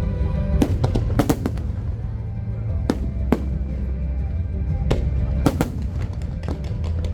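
Aerial fireworks bursting in a string of sharp bangs, about nine of them, with a quick cluster about a second in and another pair near the end, over loud music with a deep, steady bass line.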